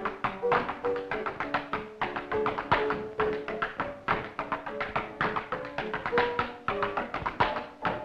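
Tap dancing: shoes striking the stage floor in quick, uneven rhythms, over accompanying music with a clear melody.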